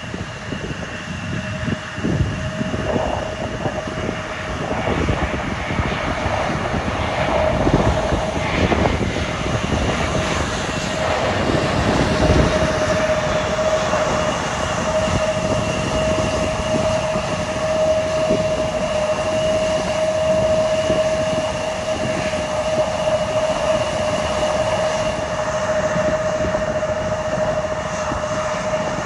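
Airliner engines running with a steady whine over continuous rumbling noise, the whine strongest in the middle stretch.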